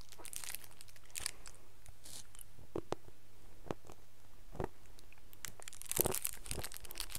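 Irregular crinkling, crackling and clicking of small objects and packaging being handled by hand, with a few sharper clicks spread through, the loudest around six seconds in.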